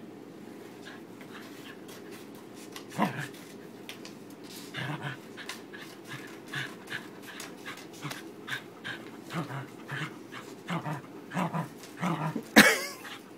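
Pembroke Welsh corgi growling and panting in short bursts while tugging on a rope toy, with one loud sharp sound near the end.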